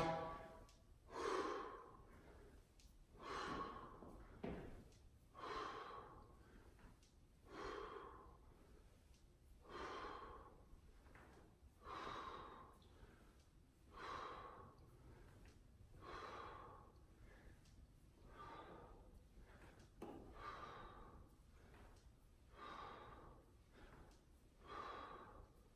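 A man's faint breathing during bodyweight squats: a breath about every two seconds in a steady rhythm, one with each rep.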